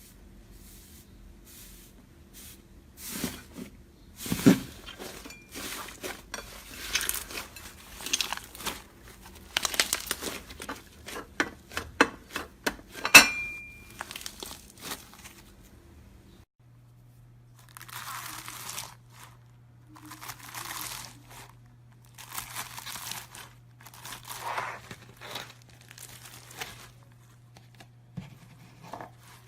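Crackling and crunching as a soft, crunchy material is pressed and worked by hand. In the first half it is a dense run of crackles and sharp pops. Then it becomes separate crunchy, crinkling strokes about every one and a half to two seconds.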